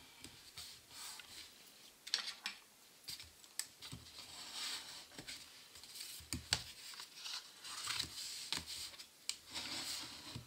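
Cardstock being folded by hand and a bone folder rubbed along the fold to crease it, with paper sliding over the mat and a few light taps.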